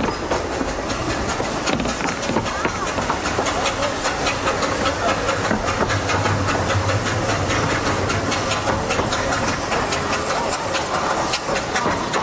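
Steam hissing from a small 15-inch gauge steam locomotive standing beside the line, heard from a passing passenger coach, with the coach wheels clicking over the rail joints.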